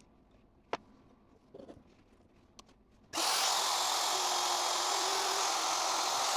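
A few light clicks, then about three seconds in a power tool starts up and runs steadily on the metal water neck housing, cutting and deburring a hole for a weld-on bung.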